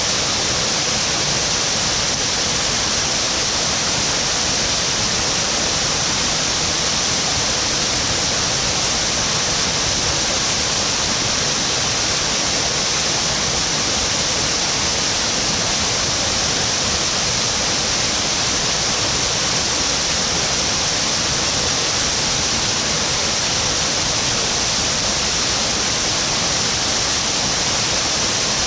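Waterfall: water falling and splashing in a steady, unbroken rush, the hiss strongest in the high range.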